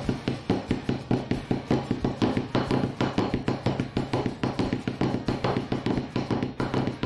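Snare drum played with sticks in the Swiss army triplet rudiment: flam, right, left, repeated over and over in an even, quick rhythm, each stroke ringing briefly.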